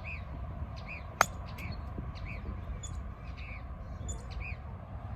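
A golf club strikes a golf ball once, a single sharp click about a second in. Small birds chirp repeatedly throughout, over a steady low background rumble.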